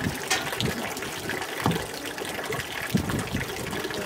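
Tap water running and splashing steadily into a stainless-steel fish-cleaning sink, with a few sharp knocks.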